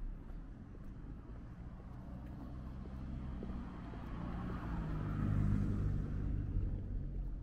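A car driving past, its engine hum and tyre noise building to a peak about five and a half seconds in, then fading.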